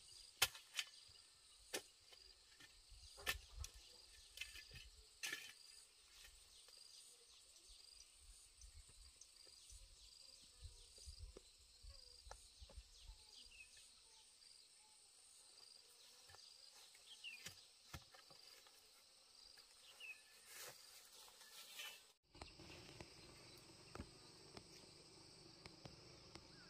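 A long-handled digging tool chopping into damp soil, about six sharp strikes a second or so apart in the first several seconds, then only an occasional knock. Underneath, insects chirp faintly in a steady, even pulse.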